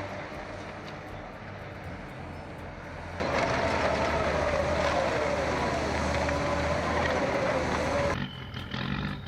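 Heavy machine's engine running, with a low drone and mechanical noise. About three seconds in it gets louder, with a wavering whine. It changes again abruptly near the end.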